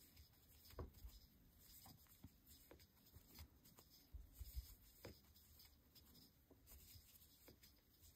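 Near silence with faint, scattered small clicks and rustles of a metal crochet hook and yarn being worked while making double crochet stitches.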